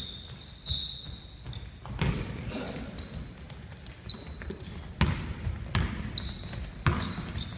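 Basketball bouncing on a hardwood gym floor in irregular thuds as players dribble and run, with short high sneaker squeaks on the floor between them.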